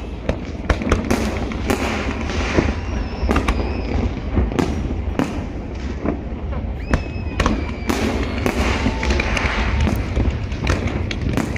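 Aerial fireworks display: a continuous run of sharp bangs and crackling bursts over a deep rolling rumble, with a few high whistling tones from rising shells.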